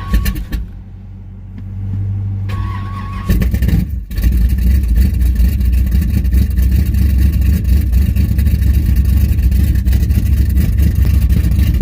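A 454 big-block V8 in a Firebird cranks on its starter, a weak battery helped by a jump, and catches about three seconds in. It stumbles briefly, then runs at a loud, choppy idle through straight-through circle-track mufflers, with a Thumpr cam.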